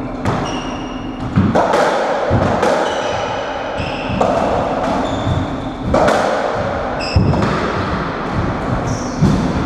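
Racketball rally on a squash court: the ball struck by rackets and hitting the walls and wooden floor, about a strike every second or so, each echoing around the court, with short squeaks of players' shoes on the floor.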